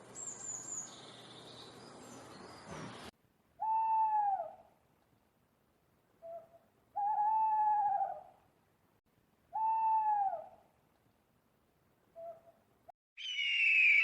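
An owl hooting: three long hoots about three seconds apart, each dropping in pitch at its end, with short soft notes between them. It is preceded by a few high chirps over a steady hiss and followed near the end by a harsh, falling call.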